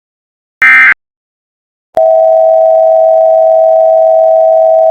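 The last of three short bursts of EAS SAME digital data, the end-of-message code that closes an alert. About a second later a loud, steady, single-pitch alert tone starts, the attention signal that opens the next emergency alert.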